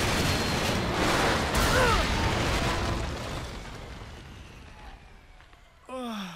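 A cartoon explosion: a loud blast and rumble that slowly dies away over several seconds. Near the end comes a short, falling groan from the dazed boy.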